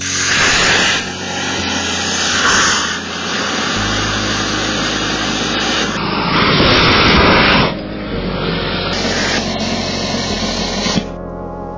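Match heads burning inside Fanta cans mounted on a toy skateboard, jetting fire and smoke out of the cans: a loud rushing hiss that surges several times, strongest for about a second and a half some six seconds in, and cuts off about eleven seconds in.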